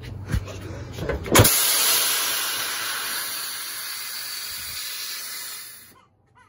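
Air ride suspension on a 1973 Chevy C20 airing out: the rear air bags' valves open suddenly about a second and a half in and let out a loud hiss of escaping air that fades slowly over about four seconds and stops, as the truck drops to the ground.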